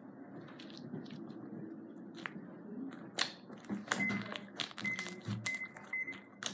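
Homemade white sequin slime being stretched and then pressed and poked by hand. It is quiet at first, then gives a run of sharp pops and clicks from about three seconds in, as air pockets in the slime crack. A faint, broken high tone runs underneath for a couple of seconds near the end.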